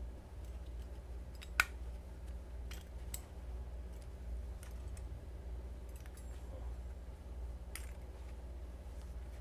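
Scattered sharp metal clicks and ticks from a butterfly knife (balisong) with one-piece milled steel channel handles as it is handled and worked open and closed, the handles and latch knocking together. One click about a second and a half in is the loudest. A steady low hum runs underneath.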